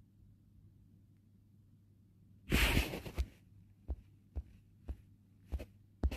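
Handling noise on a phone's microphone: a short rush of noise a couple of seconds in, then soft low thumps about twice a second over a faint steady hum.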